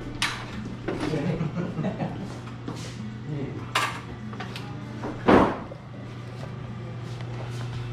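Leather boot-shaft pieces being handled on a sewing-machine table: rustling, light knocks and clicks, and one louder thump about five seconds in, over a steady low hum.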